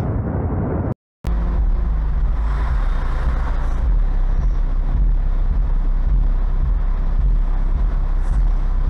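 About a second of loud, rushing noise from a glacier ice fall, then a sudden cut to a second car, heard from its dashcam: a steady low rumble of engine and road noise as it drives along.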